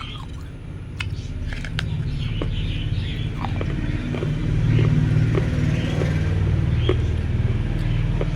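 A steady low rumble that grows louder about halfway through, with scattered small clicks over it.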